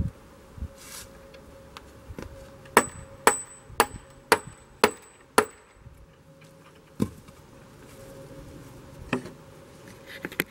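A metal striking tool tapping a bolt into a wooden post. There are six sharp metallic strikes about two a second, each with a short ring, then two more single knocks a few seconds apart.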